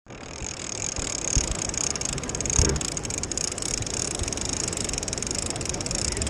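Fishing reel being cranked to retrieve a hooked fish, a fast steady run of fine clicks, over wind on the microphone and surf washing on the rocks.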